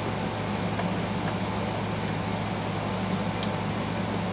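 Steady low mechanical hum, like a fan or air conditioner, with a few faint small clicks over it.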